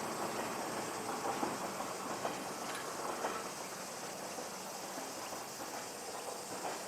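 A train on the JR Wakayama Line moving away after passing through a level crossing, its running noise fading gradually.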